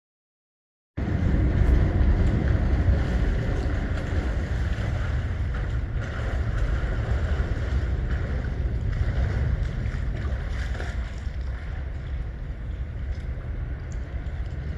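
Loud wind noise buffeting the microphone, a steady rumbling hiss that cuts in suddenly about a second in.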